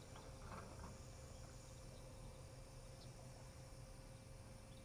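Near silence: a faint low hum with a steady faint tone, a few soft scraping noises about half a second in, and occasional faint high insect chirps.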